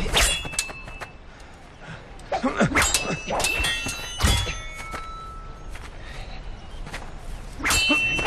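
Rapier blades clashing in quick flurries, each clash a sharp metallic clink that rings briefly: one flurry at the start, another from about two and a half to four seconds in, and a last one near the end. A heavier thud comes about four seconds in.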